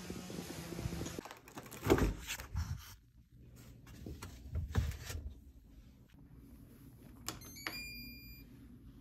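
Scattered knocks and clicks of things being handled, the loudest a thump about two seconds in. A short high electronic tone sounds near the end.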